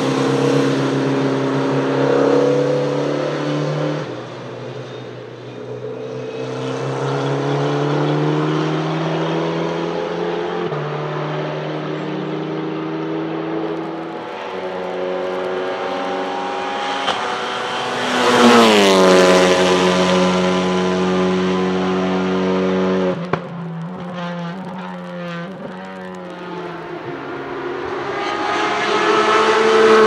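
Race car engines on a wet track. A sports-prototype accelerates away, its pitch stepping up with several upshifts. Another car then passes close with a sudden drop in pitch, and the engine note breaks up into an uneven stutter for a few seconds. Near the end a Porsche 911 GT3 Cup's flat-six approaches, rising in pitch.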